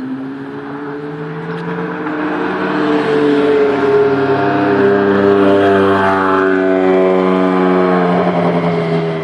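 A red Ferrari sports car's engine as the car drives past. It grows louder as the car approaches, and the pitch drops as it passes about six seconds in.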